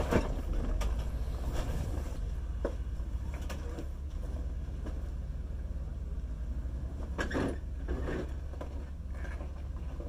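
Jeep Grand Cherokee engine running low and steady as the SUV crawls up a steep rock ledge, with a few short knocks and a louder scraping, crunching patch near the end as the tyres and underside work over the rock.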